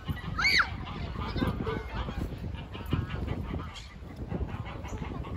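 Domestic geese honking: one loud call about half a second in that rises and falls in pitch, followed by softer calls.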